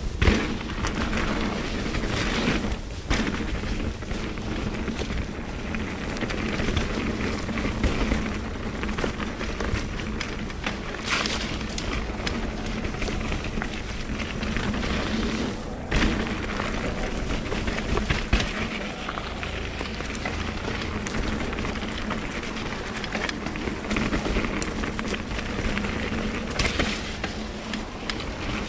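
Mountain bike riding a rough dirt trail: tyre noise and the rattle of the bike over the ground, with wind buffeting the action-camera microphone. Sharp knocks from bumps come at the very start and again about 11 and 16 seconds in.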